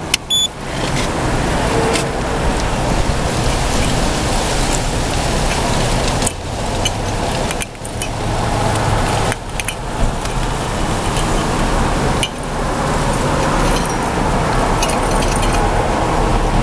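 Wind rushing on the microphone: a steady, even noise, heaviest in the low end, with a few brief dips.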